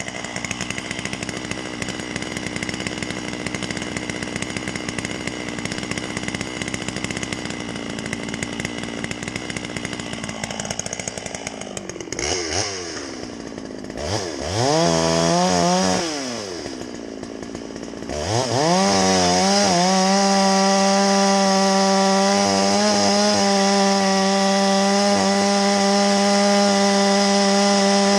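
Farmertec MS660 two-stroke chainsaw running. About twelve seconds in its revs rise and fall twice, then it is held at steady high revs with a strong even whine.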